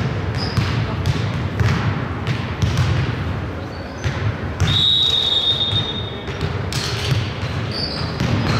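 Basketball game in a gym: a ball dribbling and feet thudding on the court, with short sneaker squeaks. A long, shrill referee's whistle blast sounds about halfway through.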